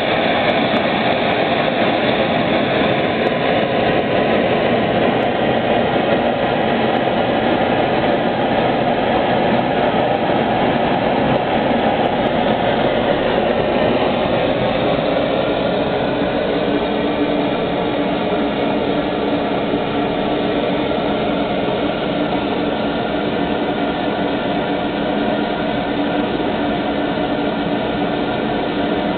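Steady rushing of a small camping-stove gas burner turned up under a water-cooled Ross yoke hot-air (Stirling) engine, with the engine running. About halfway through the sound shifts and a steady hum comes in beneath.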